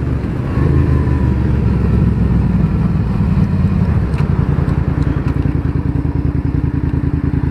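2006 Suzuki SV650S's V-twin engine with an aftermarket exhaust, running low for the first few seconds, then settling into idle with an even beat of separate exhaust pulses.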